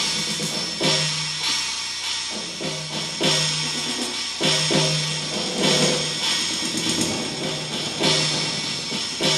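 Recorded dance accompaniment music with a drum kit beating out a steady pulse, hard accents about every second and a bit over a low held bass note.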